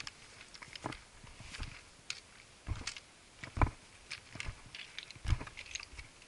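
Hiking footsteps on a rocky mountain trail: irregular crunches and clicks of boots on loose gravel and stone, with a few heavier thuds of steps down onto rock.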